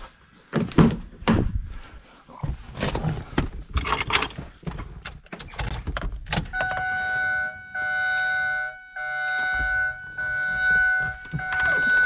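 Knocks and clicks of someone getting into a car, a door and keys handled, then the 2008 Saturn Vue's electronic warning chime: a steady tone sounding in roughly one-second pulses with short gaps through the second half.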